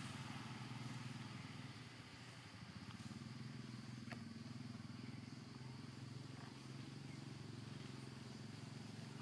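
Faint, steady low hum of an engine running, with a fine even pulse to it; a couple of faint ticks about three and four seconds in.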